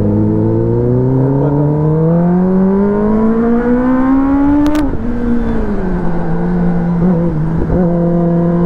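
Kawasaki ZX-10R's inline-four engine pulling hard, its pitch rising steadily for nearly five seconds as the bike accelerates. A short sharp click, then the note falls as the throttle is closed and settles to a steady lower drone.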